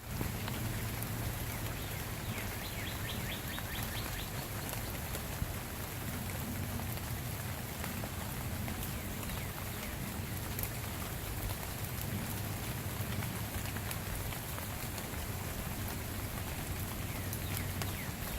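Steady rain falling and pattering on surfaces, with many small drop ticks. A bird chirps in quick runs about three seconds in and again near the end.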